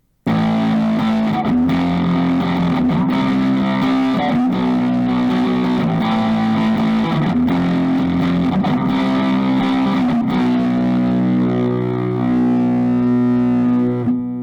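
Intro music led by distorted electric guitar, playing sustained chords that change every second or so, then cutting off abruptly at the end.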